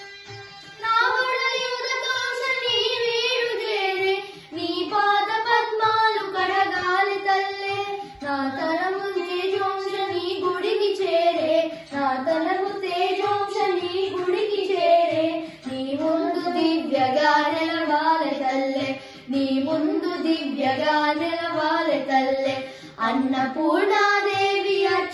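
Young boys singing a devotional song to Annapurna Devi, in long held, wavering phrases of a few seconds each with short pauses for breath between them.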